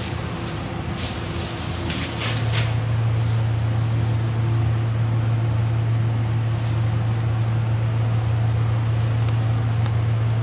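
Clear plastic masking sheeting crinkling as it is handled and cut, with a few short crackles in the first three seconds. Under it runs a steady low machine hum that grows louder about two seconds in and then holds.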